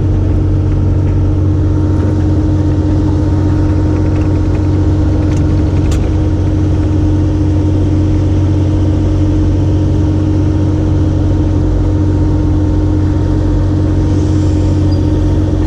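Kubota 040 excavator's diesel engine running steadily, a constant low hum with no change in speed.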